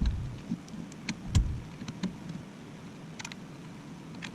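Scattered light clicks and a couple of dull knocks from hands handling small hardware and parts during assembly, with no steady machine running.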